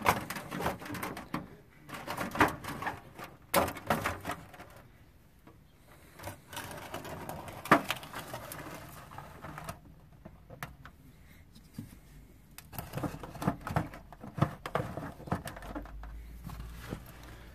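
Irregular knocks, clicks and rustling as beekeeping gear and hive parts are handled by hand, with two quieter stretches about five and ten seconds in.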